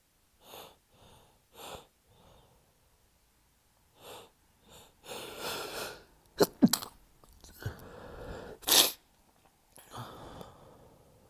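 A man's stifled sneezing fit. Short catching breaths build up, then a quick pair of sharp, held-in sneezes comes about six and a half seconds in, with another stifled sneeze near nine seconds and a breath out after it.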